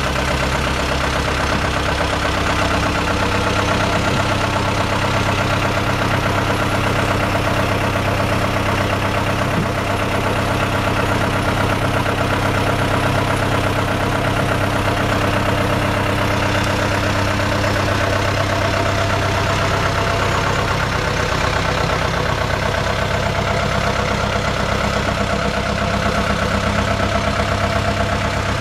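Sumitomo S160 tracked excavator's diesel engine idling steadily.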